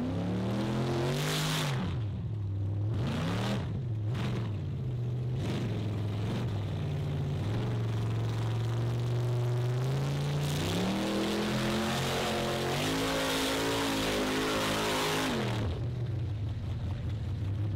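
Engine of an old Jeep-bodied off-road competition car revving up and down as it manoeuvres: several quick revs and drops in the first few seconds, a steady hold, then a long climb in pitch that falls away sharply near the end.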